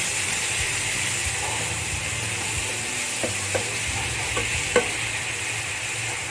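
Thin-sliced beef sizzling steadily as it is stir-fried over high heat in a nonstick pan. A wooden spatula knocks against the pan a few times, the sharpest just before five seconds in.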